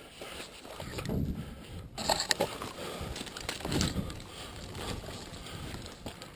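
Movement and handling noise from a body-worn camera as the player moves quickly across gravel and rubble: footsteps and rumbling rubbing on the microphone, with a few sharp clicks a little after two seconds in.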